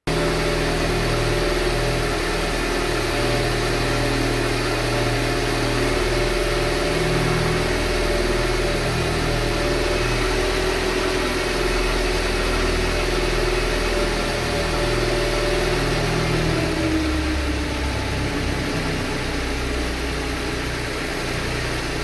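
Mercedes KE-Jetronic petrol engine idling steadily in its warm-up phase after a cold start. Its note drops slightly about two-thirds of the way through as the idle settles.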